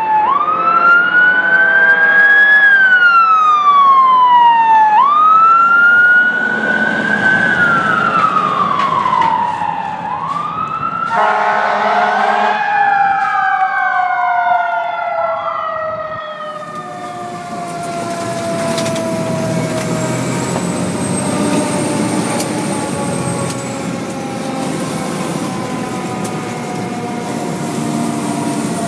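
Emergency vehicle sirens: a wail rising and falling in sweeps of a few seconds, with a second siren beneath it. About eleven seconds in, a horn blasts briefly. Over the second half a siren's tone falls slowly as it winds down, with an engine rumbling underneath.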